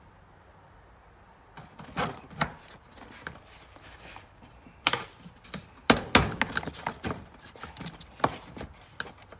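Irregular clicks and knocks of hand tools against a mower deck chute's spring and shaft as the vice grips are worked to relieve the spring tension. They start about a second and a half in, and the loudest knocks come about five and six seconds in.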